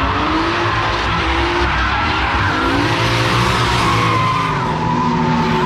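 Two drift cars drifting in tandem, engines held at high revs with the pitch rising and falling, over a continuous screech of sliding tyres.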